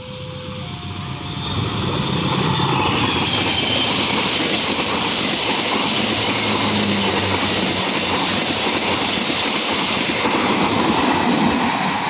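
A train passing close by: rumbling and rail noise builds over the first two seconds, then holds steady and loud.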